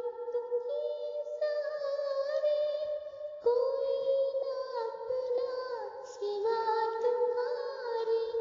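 Background music: a high voice sings long held notes that slide from one pitch to the next over a melody.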